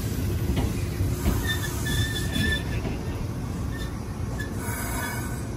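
Izukyu 2100 series 'Resort 21' electric train (the Kinme Train) rolling slowly along a station platform: a low rumble of wheels on rail with a few sharp clicks over rail joints. High wheel squeals come about one and a half seconds in and again briefly near the end.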